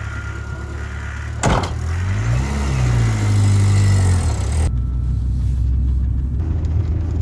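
Motor vehicle engine running with a low steady hum. About a second and a half in there is a sudden loud onset, then the engine pitch climbs and falls back as it is revved. Near the middle the sound changes abruptly to a steadier low running.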